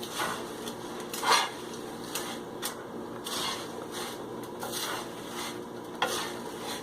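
A spatula stirring and scraping thin poha flakes with fried curry leaves and dried red chilies around an oiled pan. It makes a run of irregular scrapes and clinks against the pan.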